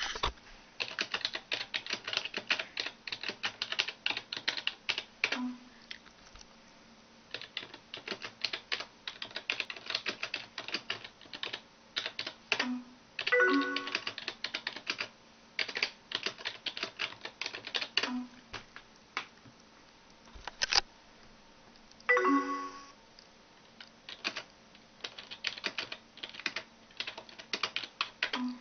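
Typing on a computer keyboard in quick runs of clicks with short pauses. Brief electronic chat alert tones from AOL Instant Messenger sound several times, two of them longer, multi-note chimes.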